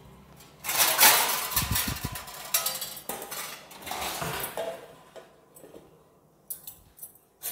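A kitchen drawer pulled open and steel plates clattering inside it as a stainless steel plate is taken out, loudest in the first couple of seconds. Near the end, a few light clinks as the plate is set down as a lid on a plastic bowl.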